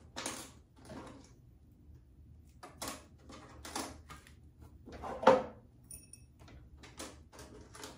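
Rummaging in a vanity drawer of hair accessories: a series of short clatters and rustles as combs, bobby pins and elastics are moved about, the loudest knock about five seconds in.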